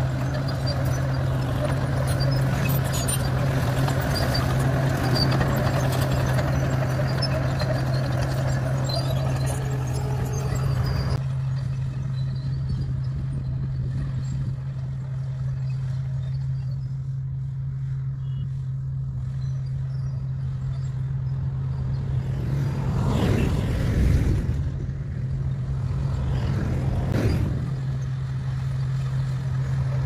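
Bulldozer's diesel engine running steadily with a constant low hum, fuller for the first third and then suddenly thinner. Passing vehicles on the adjacent road swell up and fade away about two-thirds of the way through and again near the end.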